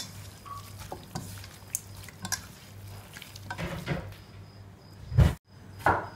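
A bare hand mixing raw rabbit meat with spice powders, onion and curry leaves inside a steel pressure cooker: wet squelching and rustling with light knocks against the pot. There is one loud thump about five seconds in.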